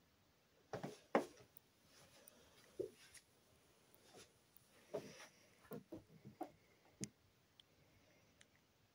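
A dozen or so short, irregular soft knocks and clicks in a quiet room, the loudest about a second in, dying away after about seven seconds.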